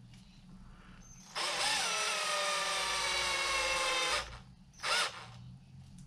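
Cordless drill whining steadily for about three seconds as it spins a length of wire held in pliers, twisting it into lure hook-hanger hardware; its pitch sags slightly as the twist tightens. A second short burst of the drill follows about five seconds in.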